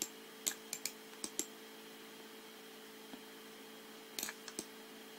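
About ten short computer input clicks, mouse buttons or keys, in small clusters, mostly in the first second and a half and again around four seconds in, over a steady low electrical hum.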